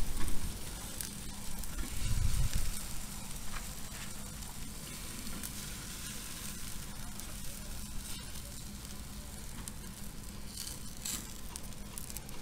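Salmon steaks sizzling on a hot oiled wire grill grate over charcoal as they are laid down, a steady hiss with a few faint clicks.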